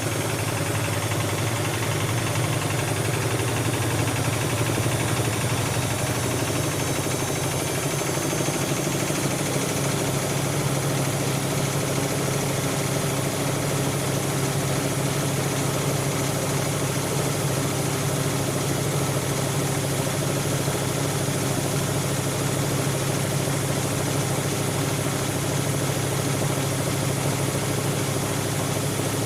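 Siemens Siwamat 7163 washing machine running with a steady motor hum and whir, its low tone shifting slightly about seven seconds in.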